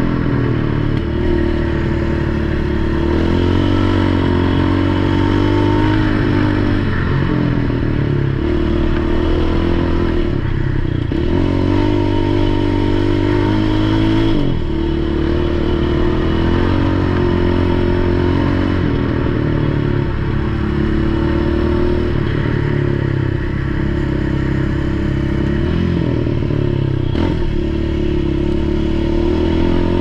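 Yamaha Raptor 700 ATV's single-cylinder four-stroke engine with an HMF exhaust, ridden on a trail: the engine note climbs with the throttle, then drops abruptly and climbs again, several times over, with a few brief knocks from the machine going over rough ground.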